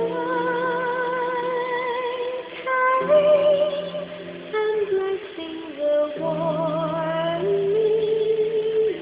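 Music: a woman's voice singing slow, long held notes with vibrato over a low steady drone, with a few shorter notes in the middle.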